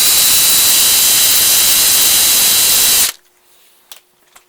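Power drill running steadily with an 11/64 inch bit, center-marking a choke arm through a hole in the choke cap, then stopping suddenly about three seconds in.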